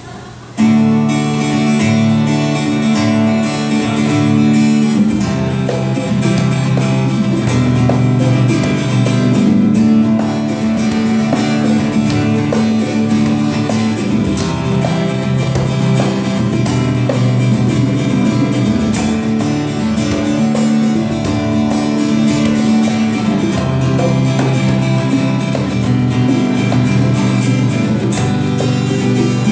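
Acoustic guitar strumming chords, starting abruptly about half a second in: the opening of a song.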